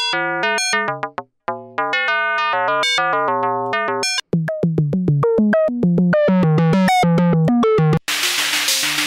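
Mutable Instruments Plaits macro-oscillator playing a fast run of short synth notes, about four or five a second, its tone shifting as the Harmonics and Morph knobs are turned. About eight seconds in, a hissing noise layer joins the notes.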